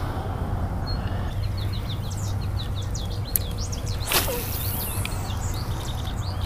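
Birds chirping in the background throughout, and about four seconds in a single sharp whoosh as a spinning rod is whipped through the air in a cast.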